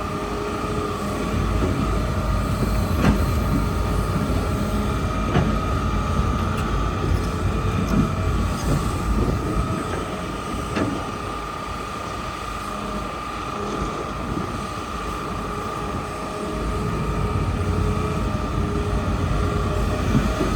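Hitachi excavator running and working: a steady engine rumble under a high, even whine, with a few sharp metallic knocks.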